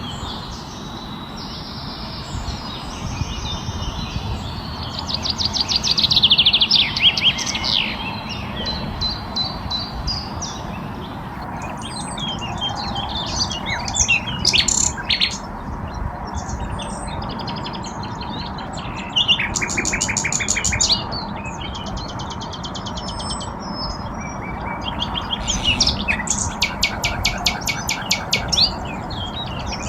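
Several songbirds singing and chirping, with repeated fast trills among the calls, over a steady background noise.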